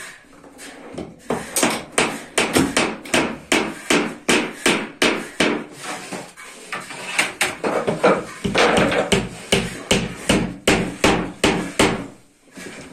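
Hammer blows struck in a steady run, about two to three a second, with a short pause about six seconds in and heavier blows later on, stopping just before the end.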